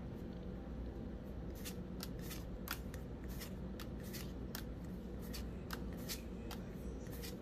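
Pokémon trading cards being flipped one by one from the front to the back of a freshly opened pack, each card giving a short, sharp snap, several a second, from about a second and a half in. A faint, steady low hum lies under the snaps.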